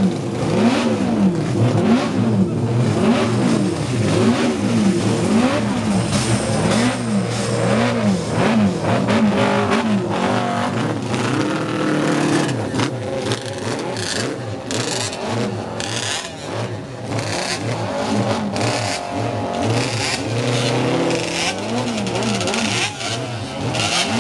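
Classic racing motorcycle engines running, throttles blipped again and again so the pitch rises and falls about once a second, with several bikes running at once. The blipping eases to a steadier note in the middle and starts again near the end.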